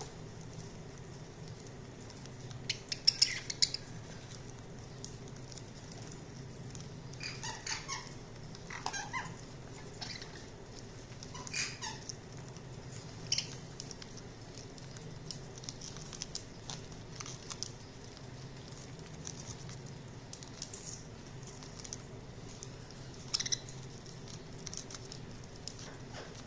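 Budgerigars giving short, scattered chirps, a few in quick clusters, with small ticks between them over a low steady hum.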